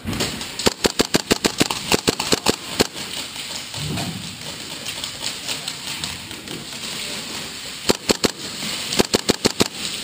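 Airsoft guns firing: rapid strings of sharp cracking shots, one run in the first three seconds and another starting about eight seconds in.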